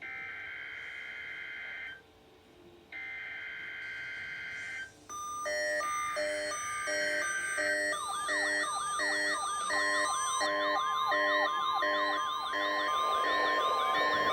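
NOAA Weather Radio required weekly test: two harsh buzzing bursts of SAME digital header data. About five seconds in, several weather radio receivers set off together, overlapping repeated beeps and wavering siren-like wails. About ten seconds in they are joined by the steady warning alarm tone.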